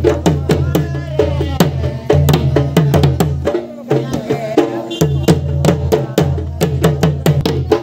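Two-headed barrel hand drums beating a fast, steady rhythm for folk dancing, with voices singing over them. The deep drum sound drops out briefly around the middle and then comes back.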